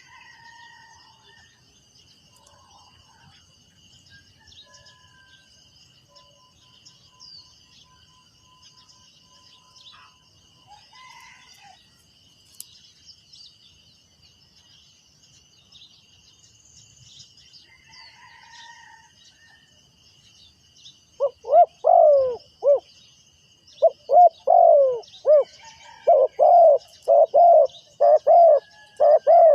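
Faint insect buzz and scattered distant bird chirps, then, about two-thirds of the way in, a spotted dove starts cooing loudly in a quick series of short, deep notes that run to the end.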